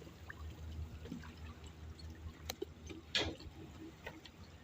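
Water sloshing and dripping, with scattered light knocks and one louder short splash-like noise about three seconds in, over a steady low hum.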